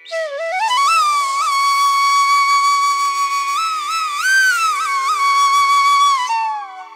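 Background music: a solo flute playing a slow melody over a low steady drone. It climbs at the start to a long held note with a few small turns, then falls away near the end.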